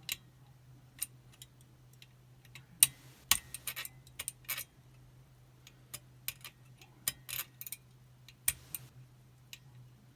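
Irregular small metallic clicks and scrapes of a lever-lock picking wire and tension tool working the levers inside a Chubb Detector five-lever mortise lock. The clicks come in little clusters, the sharpest about three seconds in, over a steady low hum.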